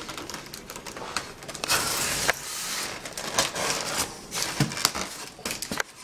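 Foam packing pieces being pulled and handled: an irregular run of scraping and rubbing with many light clicks and knocks.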